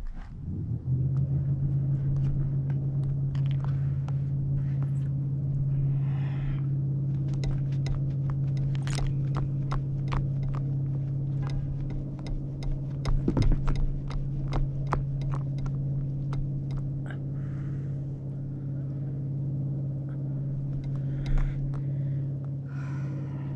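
A steady engine hum that comes up about a second in and then holds one pitch, with many small taps and splashes of water against the paddleboard near the microphone.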